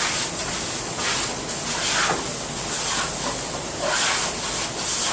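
Finely tuned hand plane shaving wood in repeated strokes, about two a second, taking down a thick layer until it is flat.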